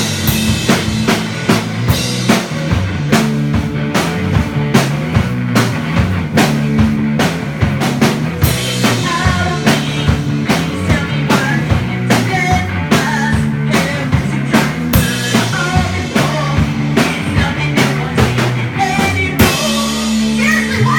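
Music with a steady drum-kit beat over a stepping bass line; a higher melody joins about a third of the way in.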